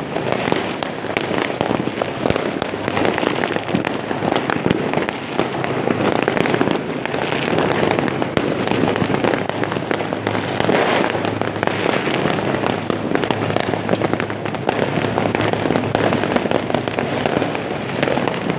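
Fireworks going off in a dense, unbroken barrage of many overlapping bangs and crackles.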